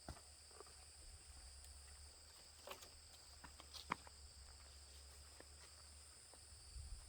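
Near silence: faint outdoor ambience with a steady high-pitched drone, typical of insects, a low rumble and a few small clicks and knocks about three and four seconds in.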